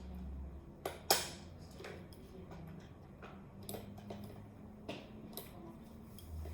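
Light clicks and taps of small objects being handled, with the two sharpest coming close together about a second in and scattered softer ones after.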